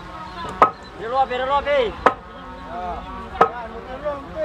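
Three sharp, ringing knocks about a second and a half apart from work on the timber blocks under a wooden pinisi hull, with men's voices calling out between them.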